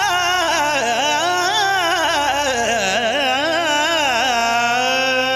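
Background music: a winding, ornamented melody over a steady drone, settling into a long held note near the end.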